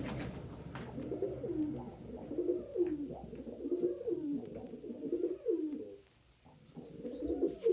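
Domestic pigeon cooing over and over, a series of low rolling coos that each rise and fall, with a short break about six seconds in. The keeper calls such noises the pigeon equivalent of smack talk.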